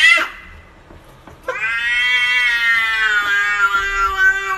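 Domestic cat meowing: the tail of a rising call cuts off just at the start, then after about a second's pause comes one long, drawn-out meow that slowly falls in pitch.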